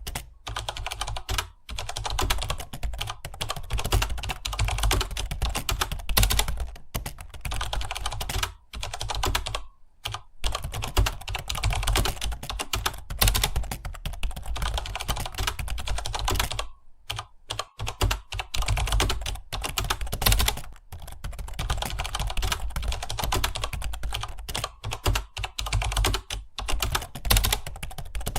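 Fast typing on a computer keyboard: a rapid, continuous stream of key clicks, broken by short pauses about nine seconds in and again around seventeen seconds.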